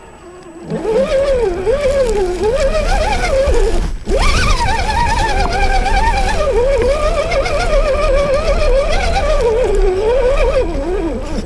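1/10-scale RC rock crawler's electric motor and gear train whining as it drives up a dirt trail. The pitch wanders up and down with the throttle and rises sharply about four seconds in. A low rumble runs underneath.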